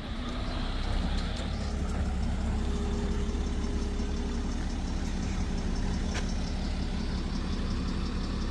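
A motor vehicle's engine idling with a steady low hum.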